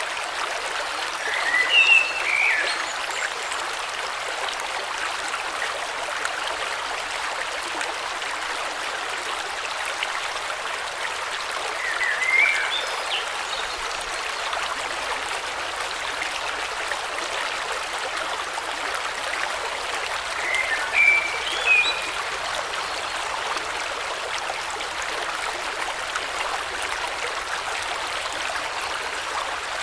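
A river or stream flowing steadily over stones, with a bird giving a brief chirping call three times, about two, twelve and twenty-one seconds in.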